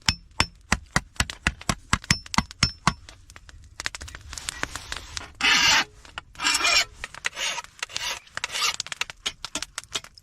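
Hammer striking thin 22-gauge steel sheet on a wooden stump anvil at about four light blows a second, turning up a lip around the edge. In the middle come about five long rasping strokes as the sharp edges are dressed off, then a few more hammer taps near the end.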